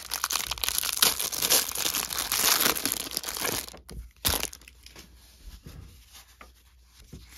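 Clear plastic wrapper crinkling and tearing as it is pulled off a stack of baseball cards, for about the first four seconds. After that, quieter faint taps and rustles as the card stack is handled.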